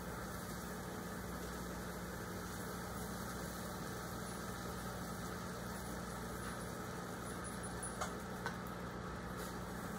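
Microwave oven running with a steady hum, two faint clicks about eight seconds in.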